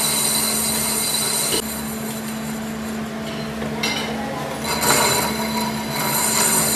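Lathe turning a car brake disc: the cutting tool shaves the spinning cast-iron face with a high whine and clinking chips, over the steady hum of the lathe. The high whine falls away about a second and a half in and comes back about three seconds later.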